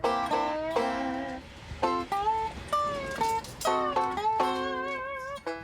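Background music led by a bright plucked-string instrument such as banjo or mandolin, playing quick picked notes in a country-style tune.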